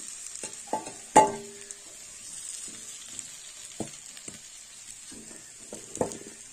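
Fried yam (mati aloo) cubes sizzling in hot oil in an aluminium kadai while a metal spatula scoops them out, clinking and knocking against the metal pans about half a dozen times. The loudest knock comes about a second in and rings briefly.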